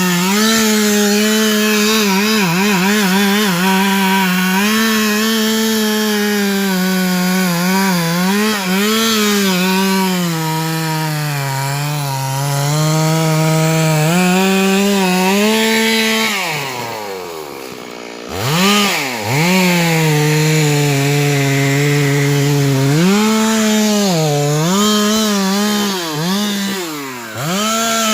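Stihl MS 382 two-stroke chainsaw running at full throttle as it cuts into a tree, its engine pitch sagging under the load of the cut. About sixteen seconds in, the throttle drops off and the revs fall away. The saw revs back up a couple of seconds later and keeps cutting, with a brief dip near the end.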